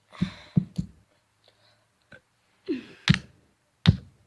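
Hard knocks on a small plastic fidget cube, four sharp strikes spaced unevenly as it is hit to break it open, with brief scuffing between them.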